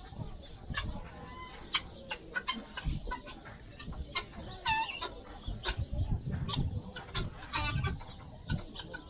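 Birds calling: many short, sharp calls overlapping, with a couple of longer calls falling in pitch near the middle and about three quarters in.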